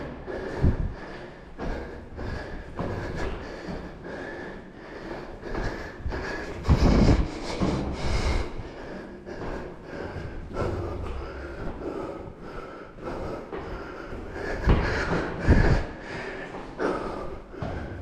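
Heavy breathing of a person climbing many flights of stairs, close to the microphone, with footsteps on the steps and a few louder thumps.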